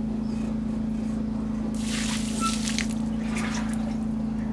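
Water trickling and splashing around a 1000-litre IBC water tank, loudest for about a second starting about two seconds in, over a steady low hum.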